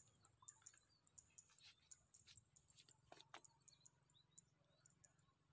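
Near silence outdoors, with scattered faint, high, short bird chirps and a few soft clicks in the middle.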